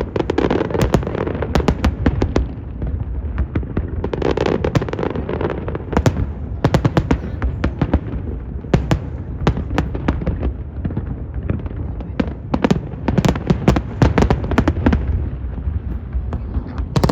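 Aerial fireworks going off in quick succession: many sharp cracks and bangs, several a second, over a continuous low rumble of bursting shells.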